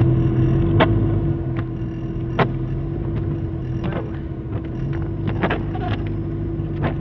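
Inside a car driving over a snow-covered, rutted road: a steady rumble of engine and tyres with a constant hum. Short clicks and knocks come every second or so.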